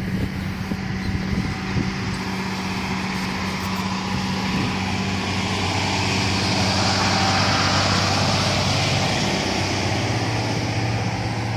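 An engine running steadily with a low hum, while a rushing noise swells in the middle and eases off toward the end.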